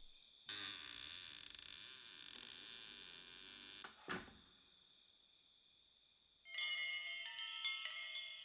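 Anime soundtrack: a soft ambient bed of steady high chirping with a short swish about four seconds in. About two seconds from the end, music with tinkling wind-chime-like notes starts.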